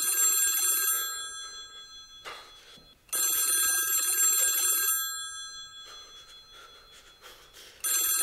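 Telephone ringing: rings about two seconds long, each trailing off, repeating about every four seconds.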